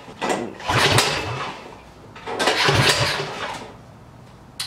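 Recoil pull-starter being yanked twice on a Predator 212 single-cylinder small engine, each pull a second-long whirring crank that dies away without the engine catching, because the fuel line was left disconnected. A sharp click near the end.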